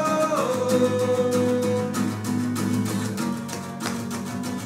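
Live acoustic rock band: two acoustic guitars strumming an instrumental passage. It follows a held sung 'whoa' that glides down and ends just after the start.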